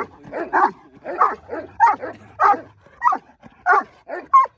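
A shepherd dog barking repeatedly, about ten short barks at roughly two a second.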